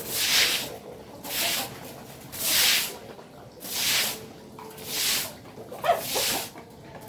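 Six even hissing strokes, about one every 1.2 seconds, each lasting about half a second.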